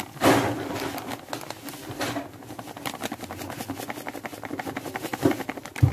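Grated coconut being poured and shaken from a plastic bag into a dry stainless-steel saucepan: the bag crinkles and the flakes patter on the metal, over a steady low hum. There is a louder rustle just after the start and a thump just before the end.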